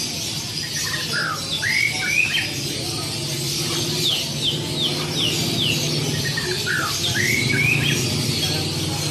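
White-rumped shama (murai batu) singing, with rising whistled phrases and a quick run of about five descending notes in the middle, over a steady low background hum.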